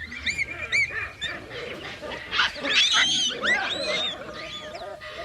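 A troop of baboons screaming, many high, arching calls overlapping and loudest around the middle. A steady musical drone comes in near the end.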